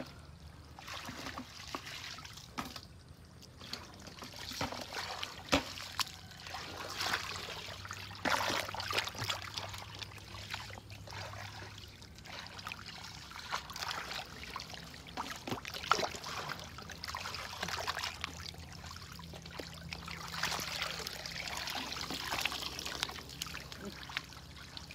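Shallow muddy water splashing and trickling in uneven bursts as hands and a plastic basket scoop through mud full of small fish, with scattered sharp wet clicks.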